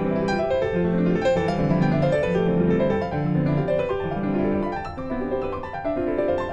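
Background music: a piano melody over held chords.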